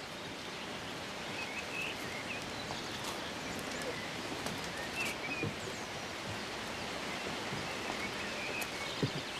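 Outdoor ambience: a steady hiss of background noise with a few faint, scattered bird chirps, and a couple of soft knocks near the end.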